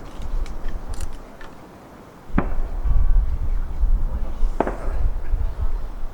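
Aerial firework shells bursting: a few sharp bangs spaced a second or two apart, with a low rumbling boom from about two seconds in.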